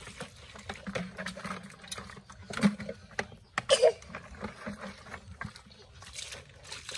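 Water splashing and sloshing as it is thrown by hand and poured from a plastic scoop over a plastic toy dump truck, with irregular small knocks of handling. A brief loud pitched sound stands out about four seconds in.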